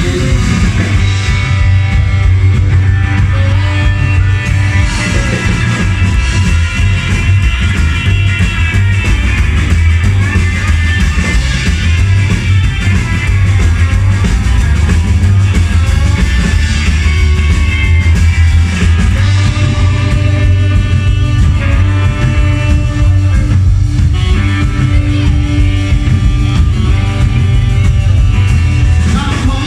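Loud rock music with guitar, playing steadily throughout.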